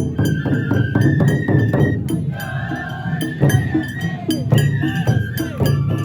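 Japanese festival music (matsuri-bayashi): a high flute line held and stepping in pitch over quick, steady percussion strikes.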